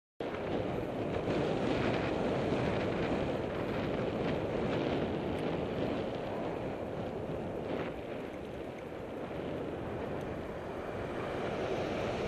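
Steady wind rushing over the microphone of a camera on a moving bicycle, with road noise underneath and a few faint rattles; it starts abruptly after a brief break.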